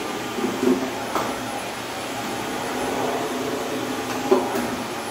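Handheld vacuum cleaner running steadily, with a few short knocks as it bumps against the cabinet and floor.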